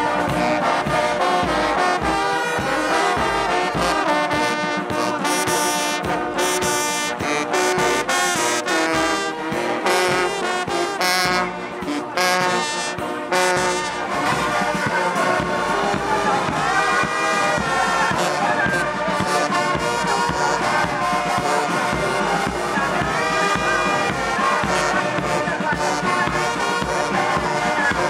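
Marching brass band playing a tune, led by trombones with sousaphones and baritone horns, loud and continuous throughout.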